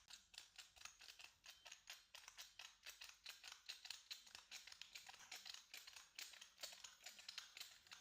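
Large push-button spice grinder pumped over and over, cracking whole peppercorns: a fast, faint run of crisp clicks, several a second.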